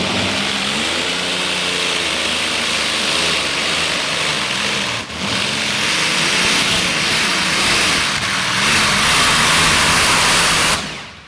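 Modified pulling tractor's blower-topped engines at full throttle as it launches and pulls the sled, the engine pitch wavering up and down as the revs rise and fall. The sound cuts off suddenly near the end.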